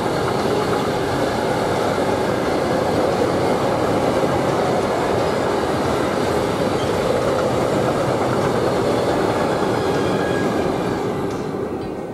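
Long freight train of tank wagons rolling past: steady noise of steel wheels on the rails, fading away near the end as the last wagon goes by.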